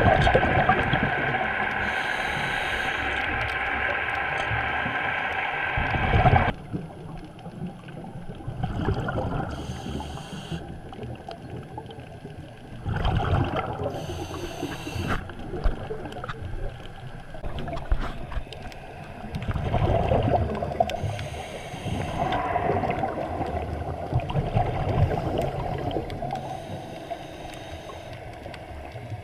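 Scuba diver's regulator breathing heard underwater through the camera housing: a steady whistling hiss that cuts off about six seconds in, then gurgling bubble surges from exhalations every few seconds.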